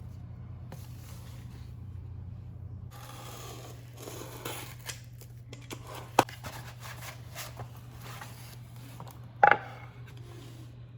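Kitchen items being handled: a run of small clicks and scrapes, with two sharp clacks about six and nine and a half seconds in, over a steady low hum.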